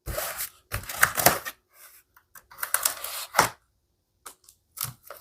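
Packaging crackling and tearing in four short bursts of sharp clicks as it is worked open with a knife that cuts poorly.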